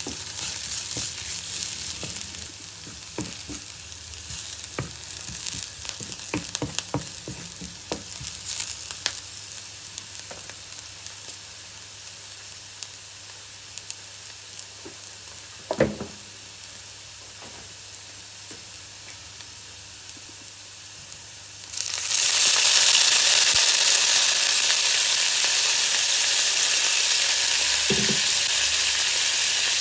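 Green mustard greens stir-frying in a pan: a spatula clicks and scrapes against the pan over a sizzle for the first several seconds, then the sizzle goes quieter with a single knock. About two-thirds of the way in the sizzle suddenly becomes much louder and holds steady.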